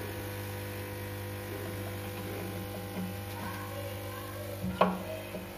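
Steady low electrical hum from the aquarium equipment, with a brief sharp sound about five seconds in.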